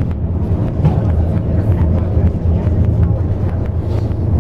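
Inside the cabin of a moving intercity bus: a steady, loud low rumble of engine and road noise.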